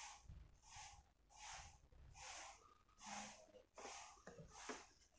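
Faint, rhythmic breathing close to the microphone, a soft puff a little more than once a second, with a few light clicks near the end.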